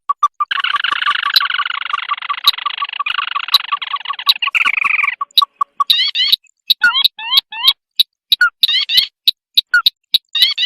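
Looped bird-trapping lure recording of crake calls. Quick even ticking notes, about six a second, sit under a dense chattering churr for the first five seconds or so. Groups of short rising whistled notes follow, with sharp clicks scattered throughout.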